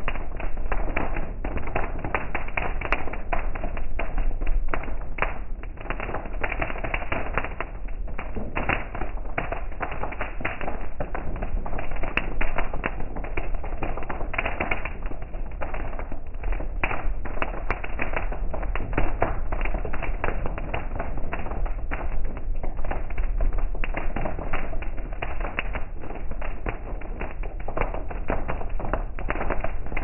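Heavy rain falling on a car's roof and windshield, heard inside the cabin: a dense, uneven tapping of drops over a low steady rumble.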